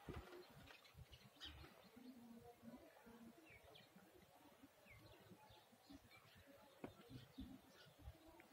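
Near silence, with a few faint, short bird chirps in the background.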